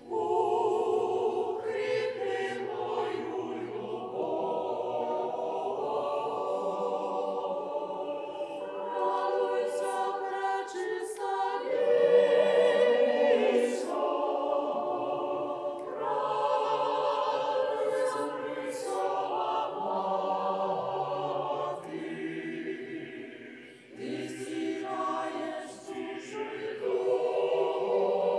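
A choir singing a slow hymn in long, sustained phrases in several voice parts, with a brief break a few seconds before the end.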